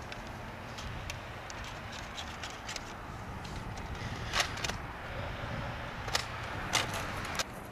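Toy foam-dart blasters firing: several short, sharp snaps in the second half, the loudest about four and a half seconds in, over a steady low outdoor rumble.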